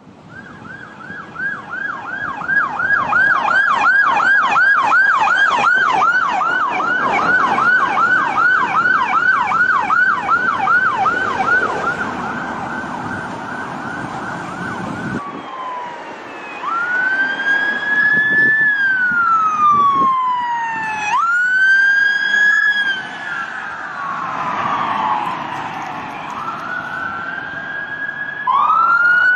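Police siren: a fast yelp of about three sweeps a second, swelling in over the first few seconds. About halfway through it cuts to a slow wail whose pitch rises and falls every few seconds.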